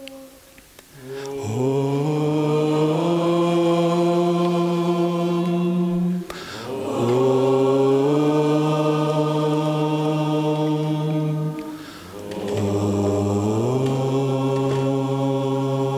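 A man chanting three long held notes, each gliding up into its pitch and then held steady, with a short breath between them.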